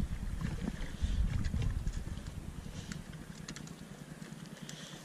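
Wind buffeting the microphone in a low rumble that dies down about three seconds in, with a few faint small ticks over it.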